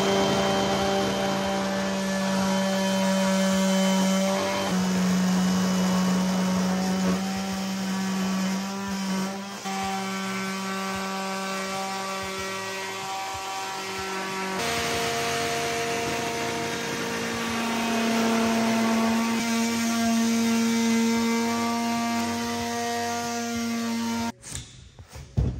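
Oscillating multi-tool cutting through plywood: a loud, steady buzzing whine. Its pitch steps up slightly about halfway through, and it stops shortly before the end.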